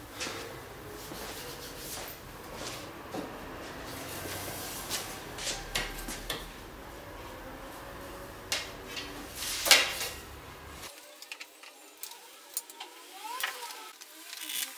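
Scattered clicks, knocks and rubbing from hands handling motorcycle parts at the rear frame and seat, with one sharp knock just before ten seconds in. A low background hum cuts out abruptly about eleven seconds in.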